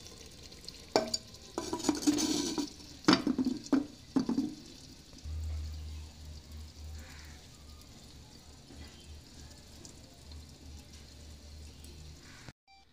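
A spoon scraping and knocking in an earthenware pot of chicken in masala, with a few sharp clicks, over a light sizzle. From about five seconds in only a faint low hum is left.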